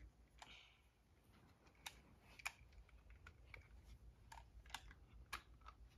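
Faint, irregular plastic clicks, about nine of them, as a Nerf Rival grenade toy is handled and its parts fitted together while it is loaded with foam balls.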